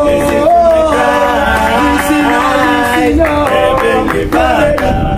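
Group of four men singing a cappella in harmony, several voices holding and gliding between notes together.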